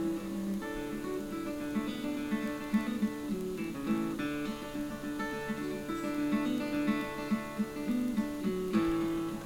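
Acoustic guitar instrumental music, a tune of quick picked notes.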